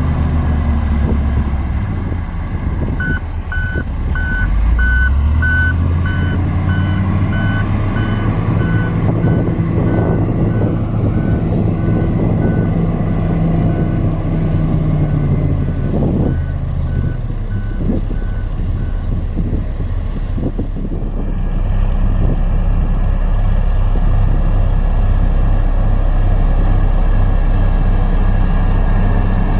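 A heavy diesel construction machine's engine runs while its backup alarm beeps in a regular series for about sixteen seconds, the sign that the machine is reversing. The engine pitch rises and falls a few seconds in. The beeping stops in the last third, leaving the engine running.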